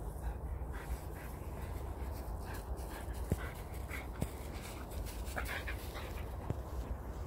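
Lurcher-type dog panting and sniffing close by, with a few light clicks, over a steady low rumble.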